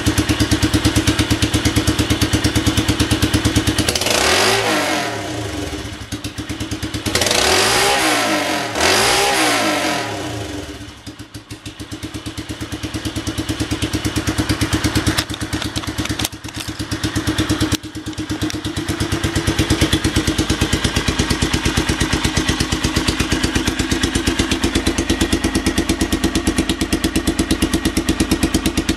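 Kawasaki 250TR single-cylinder four-stroke engine, fitted with a vintage Bison-style muffler, running on the stand. It is revved three times in the first ten seconds, its idle sags low just after, then it settles into a steady idle.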